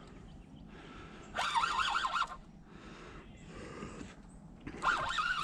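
A bird calling in two bursts of quick, wavering calls, each about a second long, the first about a second and a half in and the second near the end.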